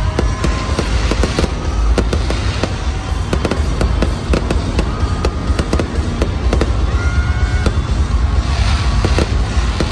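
Aerial fireworks going off in rapid succession: many sharp cracks and bangs over a steady low rumble, with music playing underneath.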